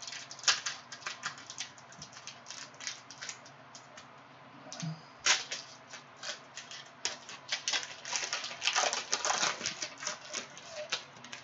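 Plastic wrapper of a Panini Prizm basketball card pack crinkling and tearing as it is opened by hand: a run of sharp crackles, thickest about nine seconds in.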